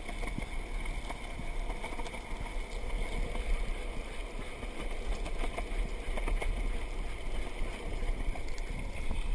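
Water rushing and splashing around a kayak, with wind rumbling on the camera's microphone.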